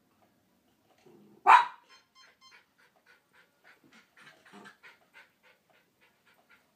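A poodle-type dog gives one loud, sharp bark about a second and a half in, then pants quickly, about three or four breaths a second.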